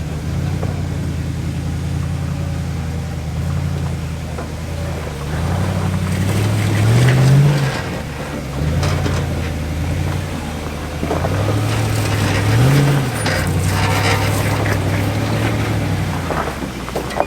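Four-wheel-drive engine pulling at low revs on a rocky creek track, revving up briefly twice, with knocks and crunches from the vehicle working over rocks.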